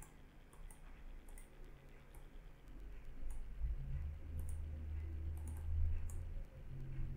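Computer keyboard and mouse clicks: scattered light clicks as text is entered into form fields. A low hum comes up for about three seconds in the middle.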